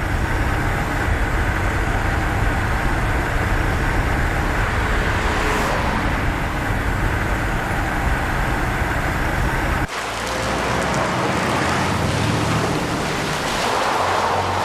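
Steady motor-vehicle or traffic noise with a low hum. The sound changes abruptly about ten seconds in.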